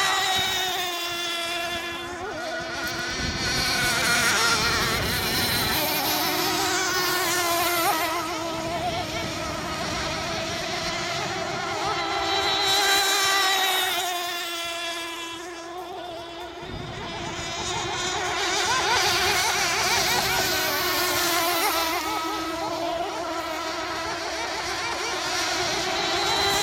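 Several racing model hydroplanes' small engines whining at full throttle as they circle the course, their pitch rising and falling as each boat passes. The sound swells and fades several times as the boats come near and go away.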